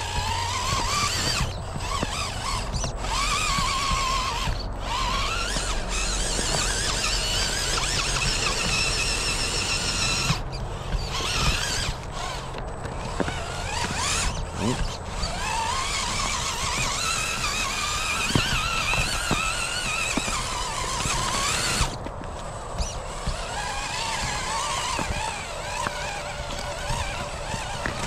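Electric drive motor and gearbox of an RC4WD Bully 2 radio-controlled rock crawler whining as it is driven. The pitch rises and falls with the throttle, and the whine cuts out briefly several times when the throttle is let off.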